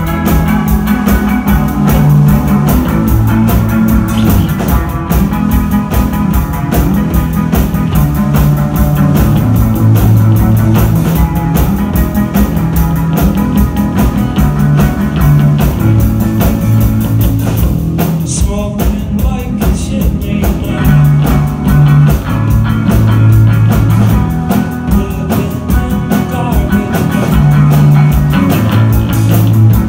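Live rock band playing: electric guitar, bass guitar and drum kit, with a moving bass line under driving drums.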